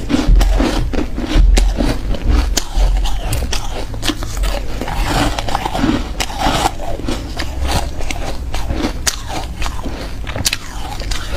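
A person biting and chewing refrozen ice close to the microphone, with a steady run of sharp crunches and cracks, several a second. Heavy low thuds come with the crunching in the first couple of seconds.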